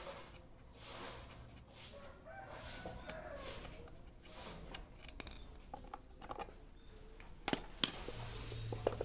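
Small clicks and taps of a chainsaw's bar, chain and sprocket cover being handled as a shorter bar is fitted, with two sharp metal clicks near the end.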